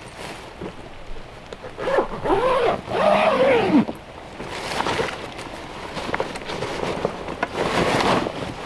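Long zipper on a pop-up canopy's carry bag being unzipped down its length, loudest a couple of seconds in, then the bag's fabric rustling as the folded canopy is drawn out.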